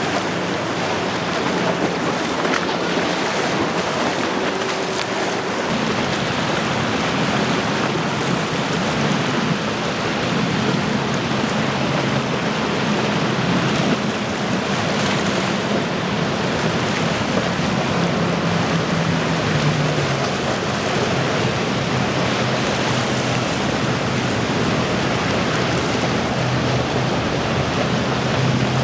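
Outboard-powered center-console boats running fast through choppy water: a steady hiss of wake, spray and wind on the microphone under the low drone of the outboards. About six seconds in, a deeper, stronger engine drone takes over as a 42-foot HCB Lujo with quad Mercury 450 hp outboards runs by.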